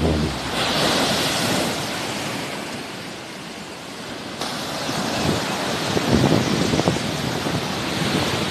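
Sea waves washing onto the shore, a wave's hiss swelling about a second in, easing off, then building again, with gusts of wind rumbling on the microphone.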